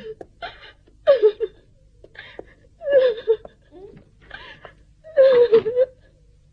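A girl sobbing: a string of short wavering wails about a second apart with gasping breaths between them, the longest and loudest cry near the end.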